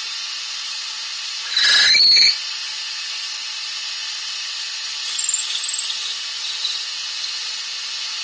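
A wood lathe spins a yew blank with a steady high hiss while an 8 mm drill bit in a tailstock Jacob's chuck is fed into the end grain. About two seconds in, the bit cuts with a loud squeal lasting under a second. Fainter high squeaks follow as it goes deeper.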